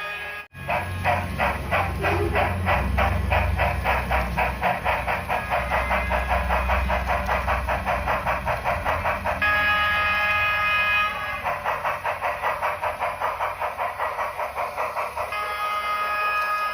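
Steam locomotive sound effects for a Union Pacific Big Boy model: steady rhythmic exhaust chuffing, about four chuffs a second, over a low rumble. A chime whistle is blown twice, once near the middle for about a second and a half and again near the end. There is a short break in the sound about half a second in.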